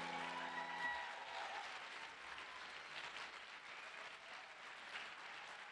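Audience applauding, fairly faint and slowly fading. The last piano chord of the song dies away in the first second.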